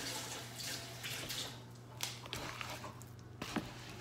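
Water splashing from a kitchen tap for about a second and a half, then stopping. In the second half come a few light knocks and soft squelches as hands work sticky bread dough in a plastic mixing bowl.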